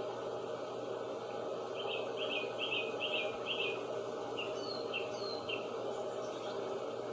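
A songbird chirping: a quick run of five chirps, then a few shorter chirps and two falling whistles, over a steady background hiss.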